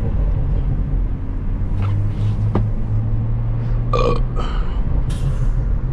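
Stage 2 BMW M340i's turbocharged 3.0-litre inline-six with a catless downpipe, heard from inside the cabin while driving: a low, steady exhaust drone that eases off a little after four seconds in. A few short higher-pitched sounds come over it around four to five seconds in.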